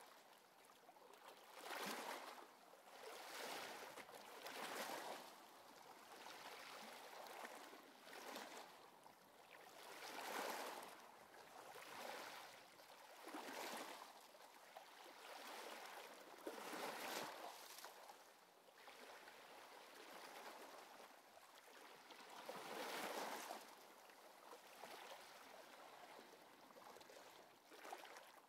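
Faint wave sounds: soft swooshes that swell and fade every one to three seconds, with no tones over them.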